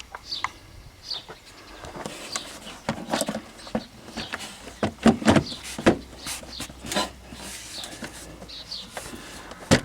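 Plastic air box cover being lowered and pressed down over a new engine air filter: a series of sharp plastic clicks and knocks, thickest in the middle of the stretch, as the housing is seated. Birds chirp now and then in the background.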